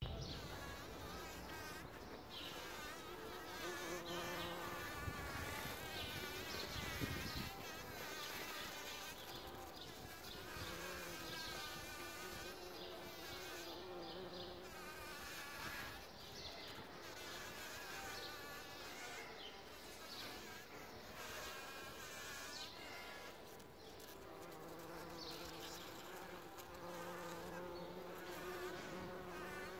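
Bumblebees buzzing as they forage on a poppy flower: a low, steady hum that comes and goes as the bees fly in and settle.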